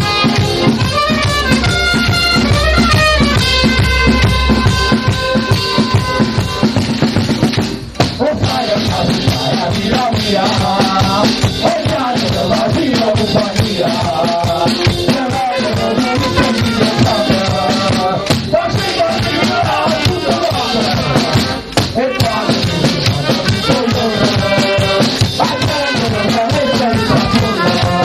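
Traditional sciuscio street band playing a New Year tune: accordions and trumpets carry the melody over a steady bass-drum and cymbal beat. There is a brief dip about eight seconds in, and from about ten seconds on the men sing along.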